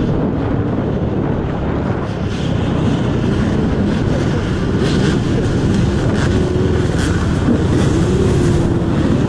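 Dirt bike engine running steadily at low speed, close to the rider's helmet camera.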